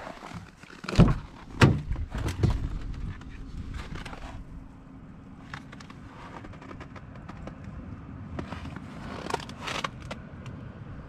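Three heavy knocks or thuds about one, one and a half and two and a half seconds in, then a steady low hum with a faint held tone, broken by scattered clicks and a short cluster of knocks near the end.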